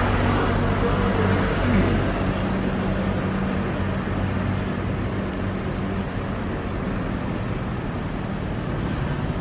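Road traffic: cars driving slowly past, a steady engine hum that gradually fades as a vehicle moves away.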